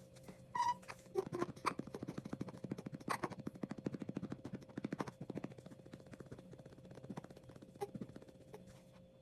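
Rapid, soft patting on a newborn's back to bring up a burp: a fast, even run of light pats that starts about a second in and tails off near the end. A brief high squeak comes just before the patting starts.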